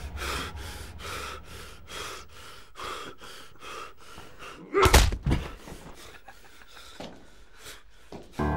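A man breathing heavily and raggedly, about two breaths a second, with one loud sudden sound about five seconds in, then fainter, slower breaths.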